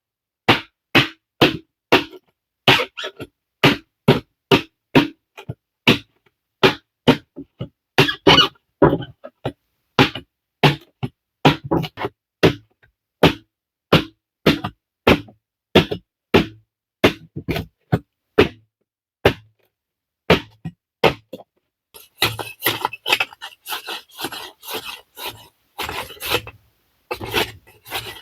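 Repeated sharp strikes on wood, about two a second, like chopping with a blade. From about 22 s they give way to a fast, continuous rasping scrape of a tool on wood.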